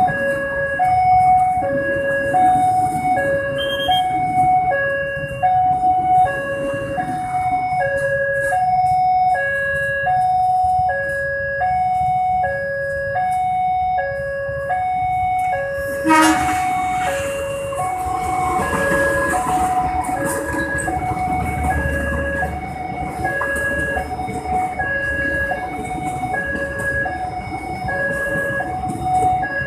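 Level-crossing warning alarm sounding two alternating tones, each about once a second. About halfway there is a sudden loud burst, followed by the rumble and clatter of a diesel-hauled passenger train passing the crossing.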